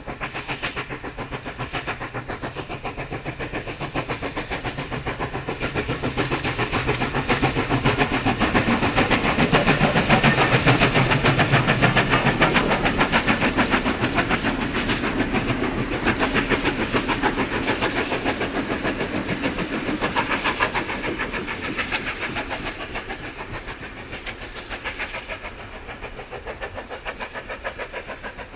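NSW 36 class 4-6-0 steam locomotive 3642 working a passenger train, its exhaust beating in a rapid, even chuff. The sound builds as it approaches, is loudest as it passes about ten seconds in, then fades as it draws away.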